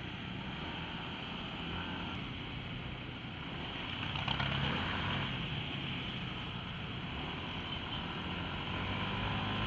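Yamaha NMAX scooter's single-cylinder engine running on the move in traffic: a steady low hum under a haze of wind and road noise, a little louder about four seconds in.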